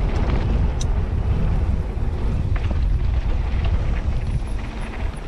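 Wind rumbling loudly and steadily on the microphone of a camera moving fast down a mountain-bike trail, with a few light clicks and rattles.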